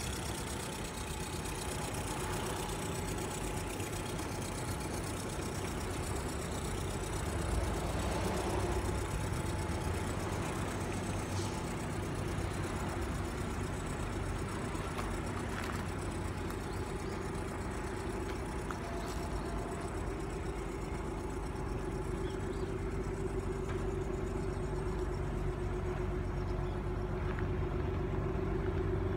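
Nissan Fairlady Z (Z32) twin-turbo 3.0-litre V6 idling steadily, a little louder near the end.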